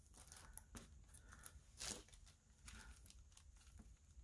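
Near silence, with a few faint rustles and small taps from a clear stamp being handled and pressed down onto card.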